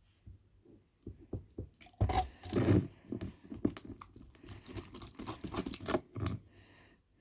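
Glue slime being mixed after the activator has gone in: a run of wet, sticky squelches and clicks, loudest about two to three seconds in.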